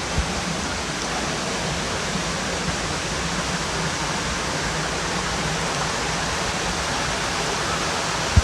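Steady rush of running water from a rocky stream and its small waterfalls.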